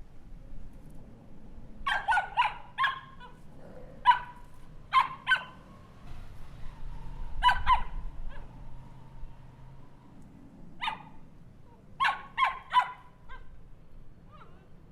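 Small dog barking in short, sharp yaps, singly and in quick runs of two or three, with pauses of a second or more between runs.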